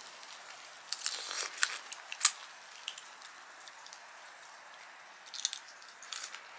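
Crawfish being eaten by hand: shells cracking and peeling and the meat bitten off. There is a cluster of sharp crackles and clicks about a second in, then quieter, with a few more clicks near the end.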